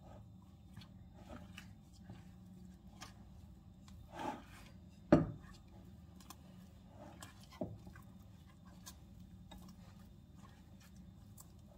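Kitchen handling sounds: scattered light clicks and soft knocks over a low hum, with one sharp knock about five seconds in.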